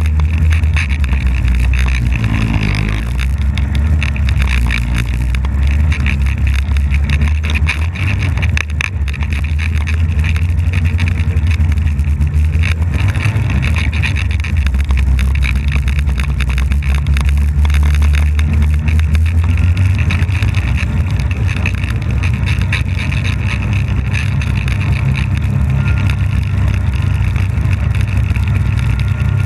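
Polaris snowmobile engine running steadily as the sled rides over snow, easing off briefly about three seconds in.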